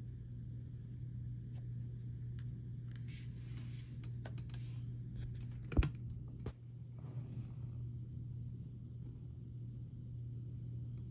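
Hands opening blind-box toy packaging: rustling and scattered small clicks and snaps, the sharpest about six seconds in, over a steady low hum.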